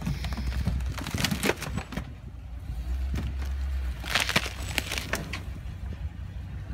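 Ford pickup truck crawling slowly over logs laid across a ditch: the engine rumbles low while the logs and gravel crack and crunch under the tyres in two bouts, about a second in and again around four seconds in.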